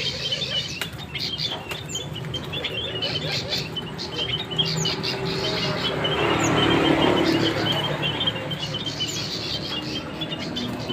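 Many small birds chirping in a dense, continuous twitter, with a short high falling note repeating every second or two. A broad swell of noise rises and peaks about six to seven seconds in.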